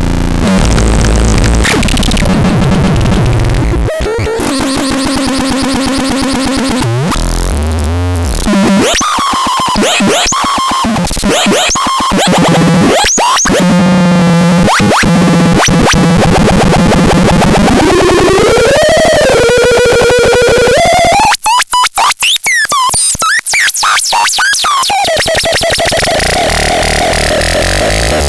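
Harsh electronic synthesizer sounds: dense, noisy tones with sliding pitch sweeps, and a run of rapid stuttering chops about three quarters of the way through.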